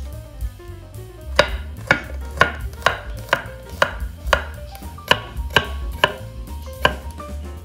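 Kitchen knife chopping garlic cloves on a wooden cutting board. About two sharp knocks a second start after the first second or so and run until near the end, over quiet background music.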